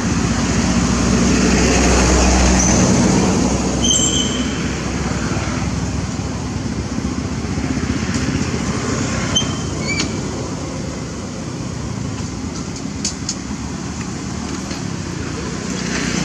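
Steady outdoor background noise with a low rumble, like passing road traffic, with a few brief high-pitched squeaks about four and ten seconds in.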